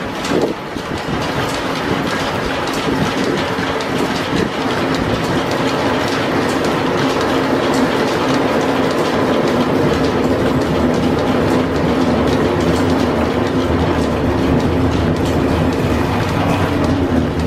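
1925 American 18-inch engine lathe, belt-driven from a line shaft, running under power with a steady hum and a constant rattling clatter from its drive.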